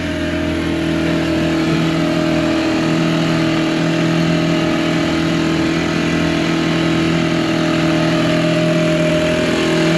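A 50 horsepower Mercury outboard motor running steadily as the boat goes along, a constant engine hum under a rushing noise. The owner calls it pretty weak and says it doesn't make much power.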